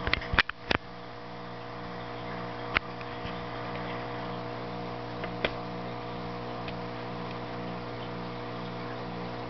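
Steady electric hum of aquarium equipment, an air pump driving a bubble curtain and filters, with a low throb pulsing about twice a second. A few sharp clicks sound in the first second, and two single clicks come later.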